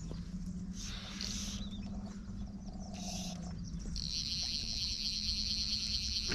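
Fly reel clicking and buzzing as a hooked snook pulls line against the drag. It comes in short bursts at first, then a steady high buzz starts suddenly about four seconds in.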